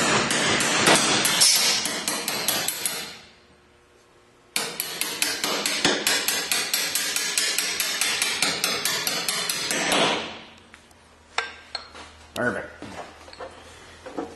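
Hammer striking a brass punch to drive a steel engine-mount bolt through the mount lug. The hammer taps in quick, light blows, several a second, in two runs: a short pause comes about three seconds in, and a few scattered taps follow near the end.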